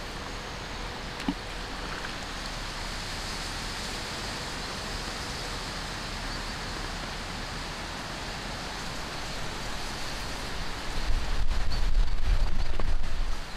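Steady wind noise, with a strong gust buffeting the microphone in a loud low rumble near the end.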